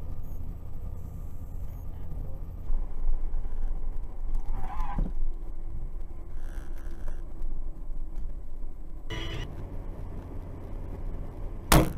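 Steady road and engine rumble inside a moving car's cabin. A short horn-like tone sounds about five seconds in, a brief burst of noise about nine seconds in, and a sharp, loud bang just before the end.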